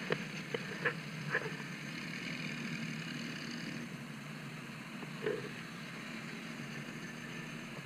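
Motorcycle engine running steadily with road and wind noise, and a few short knocks in the first second and a half and once more about five seconds in.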